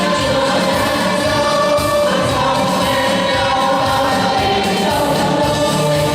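A choir singing a march song in chorus, holding long notes that change pitch every second or two.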